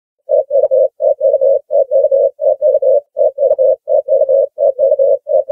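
Ring-neck dove cooing: a fast, even run of short low coos in groups of three, repeated about eight times, starting abruptly a moment in.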